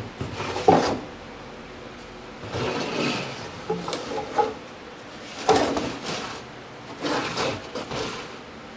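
Wooden board and plywood panel being slid and scraped against each other on a workbench: several short rubbing scrapes with a few light knocks, separated by pauses.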